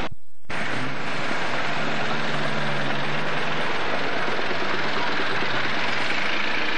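Street traffic noise with a close vehicle's engine hum for the first few seconds, after a brief gap of silence right at the start.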